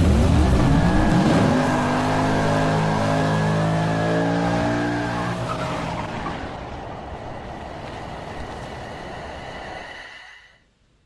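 A revving engine, its pitch rising over the first second or so, then holding steady and fading away over several seconds.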